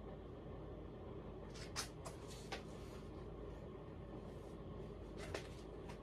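Emerson Maui Bay ceiling fan running on high: a quiet, steady motor hum with air noise. A few short, sharp clicks come between about one and a half and two and a half seconds in, and one more near the end.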